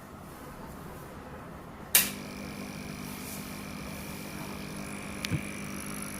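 Aquarium powerhead's low steady hum, then a sharp click about two seconds in as a Sunsun CT-202 aquarium air pump is switched on, after which the pump hums steadily over it.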